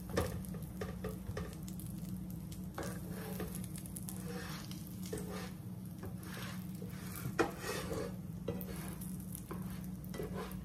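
Butter sizzling in a frying pan under a grilled cheese sandwich, with a slotted spatula pressing, scraping and turning the sandwich in the pan. Two sharper knocks of the spatula against the pan come, one at the very start and one about seven seconds in, over a steady low hum.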